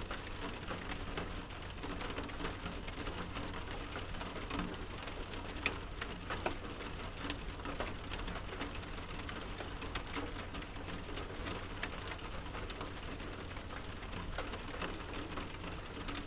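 Steady rain pattering on a window pane, with many separate drop ticks and a few louder drop hits, over a low steady rumble.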